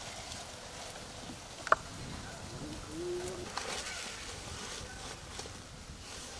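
Fresh banana leaves rustling and crackling as they are handled and folded, with a sharp click a little under two seconds in.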